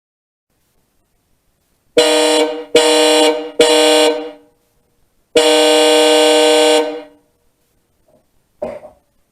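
Hella aftermarket car horns, relay-wired straight to the battery, giving three short honks and then one longer honk of about a second and a half. Each honk trails off briefly in the garage. A short faint noise follows near the end.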